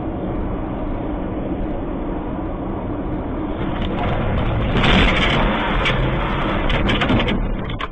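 Road and engine noise of a moving car heard from inside through a dashcam microphone. It gets louder from about four to seven seconds in, with rattles and knocks.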